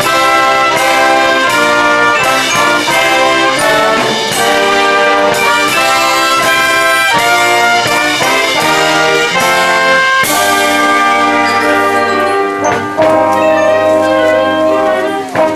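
Live brass band playing sustained chords that change every second or so: send-off music for a departing ferry.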